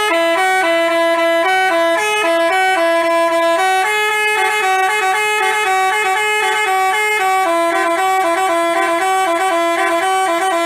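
Basuri telolet multi-tone bus horn playing a tune: quick stepping notes sounded in two voices at once, loud and steady, stopping abruptly at the end.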